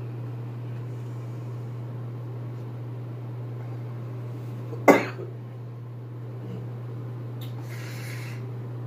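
One loud, sharp cough from a man who has just inhaled smoke from a small pipe, about five seconds in, over a steady low hum. A short breathy hiss follows near the end.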